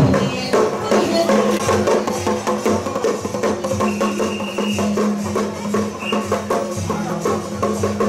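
Temple-procession percussion: drums, gongs and cymbals beaten in a fast, dense rhythm, with a steady low tone underneath and a short high tone about four seconds in.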